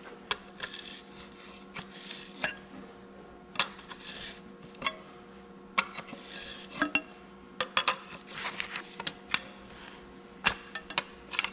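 Scattered metallic clinks and clanks of a large steel wrench being set on and worked against a torch-heated hydraulic line fitting on an Oliver 1855 tractor's rear end, to break it loose.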